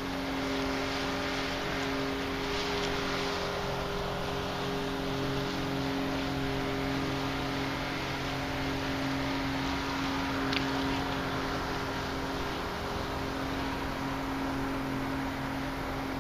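Small motorboat's outboard engine running with a steady hum, and a single sharp click about ten and a half seconds in.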